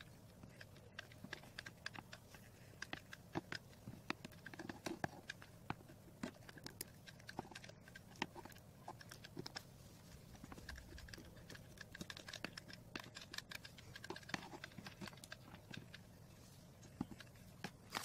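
Hot glue gun being worked over a cardboard craft model: faint, irregular light clicks and crackles, several a second, over a low steady hum.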